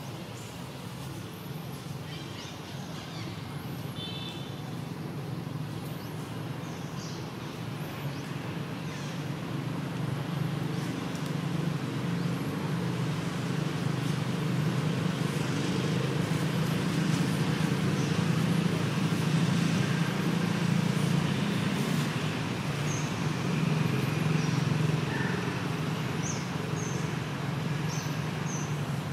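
A low engine rumble that grows louder to a peak about two-thirds of the way through and eases off near the end. A few short, high bird chirps sound over it.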